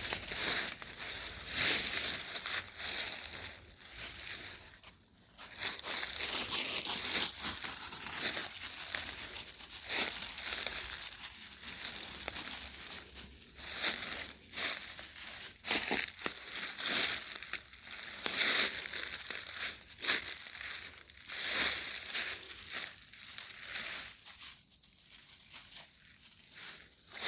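Footsteps crunching through dry leaf litter and sticks, in an uneven walking rhythm with crackling and the odd sharper snap. The steps pause briefly a few seconds in and grow quieter near the end.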